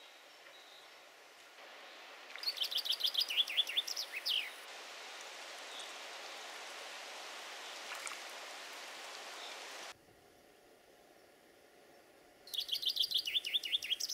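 Common chaffinch singing twice, about two seconds in and again near the end. Each song is a quick run of notes falling to a closing flourish, over a steady outdoor hiss, with a brief small splash in the pond about eight seconds in.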